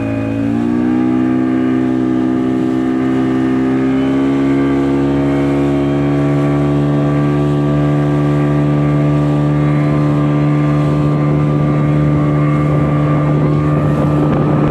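Motorboat engine running at speed, its pitch rising about half a second in and again a little around four seconds in, then holding steady.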